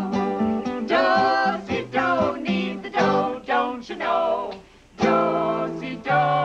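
A man and two women singing a song together to a strummed acoustic guitar. The music drops away briefly a little before five seconds in, then starts again.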